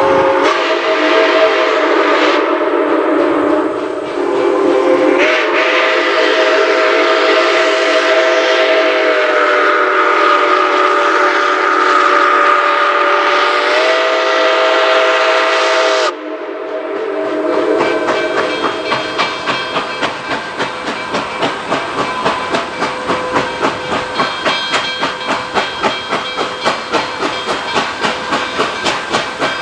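Nickel Plate Road 2-8-4 Berkshire steam locomotive No. 765 sounding its whistle, several tones at once, in two long blasts: about four seconds, then after a short break about eleven seconds, cutting off sharply. It then works steadily with an even exhaust chuff of about three beats a second and a hiss of steam as it approaches and passes.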